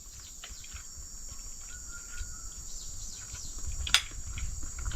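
Steady high-pitched insect chorus with short repeated chirps over it, and a single sharp click about four seconds in.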